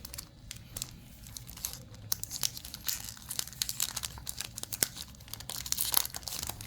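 Cadbury Crunchie's plastic wrapper crinkling and tearing as it is peeled off the chocolate bar, in irregular crackles that get busier about halfway through and again near the end.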